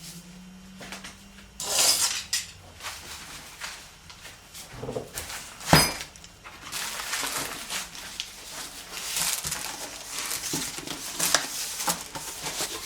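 An RC car's box and packaging being handled and opened: irregular rustling and scraping of cardboard and plastic, with small clicks and knocks, one sharp knock a little before the middle.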